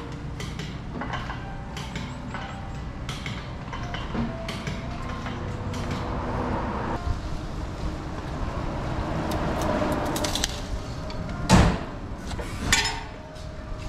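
Workshop noise around a car being raised and worked on: scattered clicks and light metal clanks, a swell of hissing noise through the middle, then two loud metal clunks near the end.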